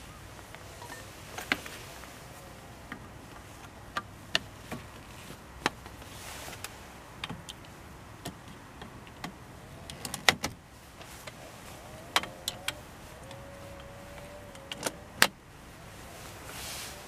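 Metal frame poles being handled and fitted together inside a car: an irregular string of sharp clinks and knocks, with a quick cluster about ten seconds in and a single loud knock about fifteen seconds in.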